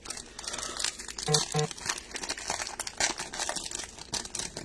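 Foil wrapper of a Bowman baseball card pack crinkling and rustling as it is handled and opened, in a dense run of irregular crackles, with two short pitched blips about a second and a half in.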